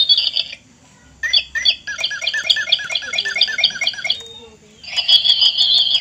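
Battery-operated toy bird in a plastic cage chirping electronically: a run of identical tweets about four a second from about a second in, then a shrill, steadier trill near the end.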